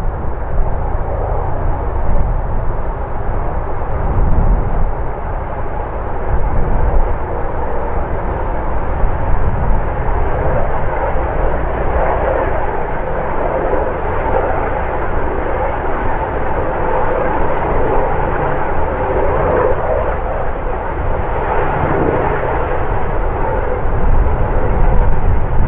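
Airbus EC135 police helicopter, with twin Pratt & Whitney PW206B turboshaft engines, flying past in the air. Its rotors and turbines make a steady drone that is strongest around the middle.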